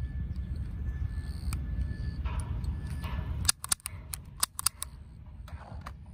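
Wind rumbling on the microphone, then a quick run of about nine sharp plastic clicks in just over a second as the parts of an Academy M9 airsoft pistol are worked by hand.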